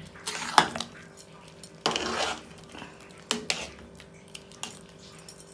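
Metal ladle stirring thick, freshly pressure-cooked rice-and-lentil khichdi in an aluminium pressure cooker, knocking and scraping against the pot several times, about once a second.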